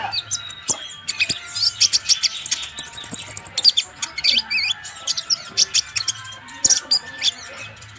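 Purple-throated sunbird (konin) singing a fast, busy song of short high chirps and quick sweeping notes.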